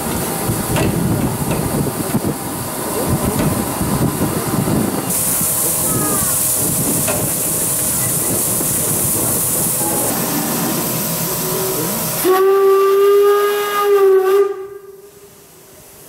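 Steam locomotive 50 3610, a Deutsche Reichsbahn class 50 2-10-0, hissing steam: a strong high hiss of steam sets in about five seconds in. Near the end the locomotive sounds one steam whistle blast of about two seconds, which cuts off suddenly.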